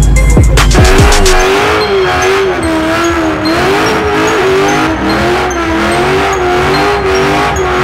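Music with a heavy beat for about the first second, then a car engine held at high revs through a burnout, its pitch wavering slightly as the tyres spin in smoke.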